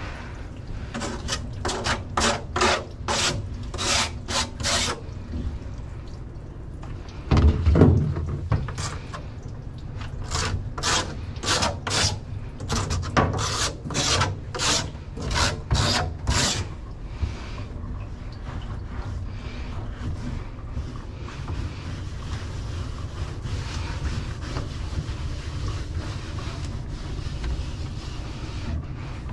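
Hands rubbing and scraping in a wet dog-bathing tub with a plastic floor grate, in short rasping strokes about two a second. A single heavier thump comes about eight seconds in. The strokes stop a little past halfway, leaving a steady low background.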